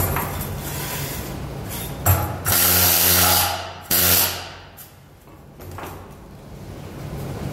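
Electric arc welding on steel plate: the arc hissing and crackling with a buzzing hum. There is a sharp click about two seconds in, then a loud stretch that breaks off and picks up again, fades to a lull about five seconds in, and builds back up near the end.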